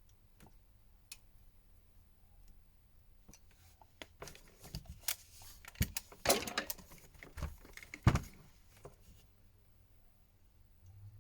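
Thin opening tool clicking and scraping against the heat-softened back cover of a Xiaomi Redmi Note 10 as it is worked into the seam to pry the cover loose. The first few seconds are quiet, then comes a cluster of scrapes and clicks, with the sharpest click about eight seconds in.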